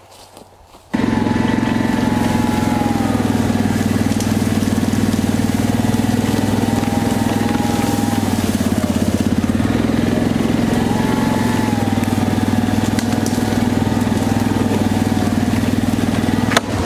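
A four-wheeler's (ATV's) engine running steadily as it creeps through dense ferns and brush, with a higher whine that rises and falls with the speed. It starts suddenly about a second in, and a sharp click comes near the end.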